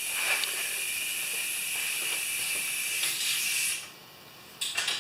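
A steady hiss of spraying air or aerosol that runs for about four seconds and then cuts off, followed by a brief rustle near the end.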